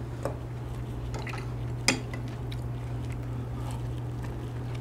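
Metal spoon scooping and sipping bone broth (gomguk) from a bowl, with small clinks of spoon on dish and a sharper clink about two seconds in, over a steady low hum.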